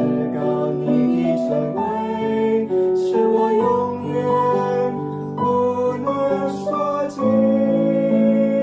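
A Chinese worship song sung by a man and a woman, with keyboard accompaniment.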